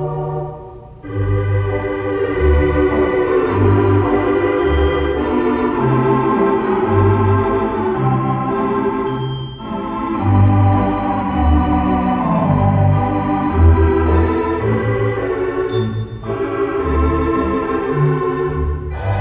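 Theatre organ playing full sustained chords over a moving bass line, with brief breaks about a second in, around halfway and near the end.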